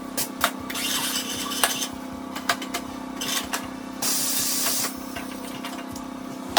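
Tyre-shop work: two bursts of compressed-air hiss, the second about four seconds in and lasting about a second, among metallic clinks and knocks over a steady machine hum.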